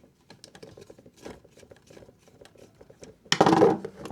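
Small clicks and scratches of a screwdriver working the terminal screws of an electrical socket to free the wires, then a louder scraping rustle a little after three seconds in.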